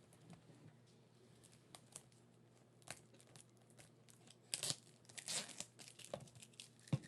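Wrapping being torn and crinkled off a sealed trading card box as it is opened. A few small ticks come first, then louder ripping tears from about four and a half seconds in.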